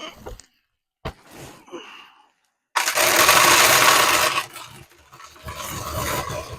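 Shelled corn being poured from a bag into a feeder hopper: a few soft knocks and rustles, then a loud rushing rattle of kernels that starts suddenly about three seconds in, breaks off briefly, and starts again.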